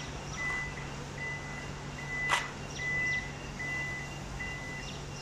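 Toyota Alphard power tailgate opening, its warning buzzer beeping at an even pace over a low steady hum, with a single sharp click about two seconds in; the beeps stop near the end as the door reaches fully open. This is a full opening run that lets the newly fitted one-touch boot relay learn the door's travel.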